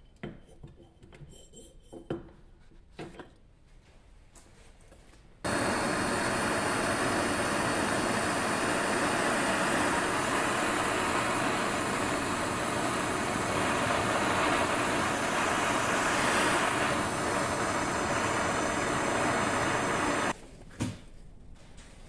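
Small propane torch flame comes on abruptly about five seconds in, burns with a steady hiss for about fifteen seconds while preheating a metal mold, and cuts off abruptly. A few light knocks of handling come before it.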